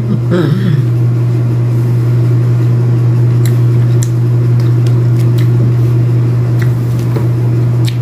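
A loud, steady low mechanical hum, unchanging throughout, with a few small clicks and crackles as pomelo segments are pulled apart and eaten.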